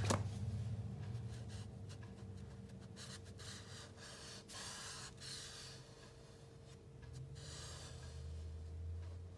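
A chamois rubbed over charcoal on drawing paper, making soft, dry rubbing strokes that come in irregular bursts. A light tap sounds at the very start.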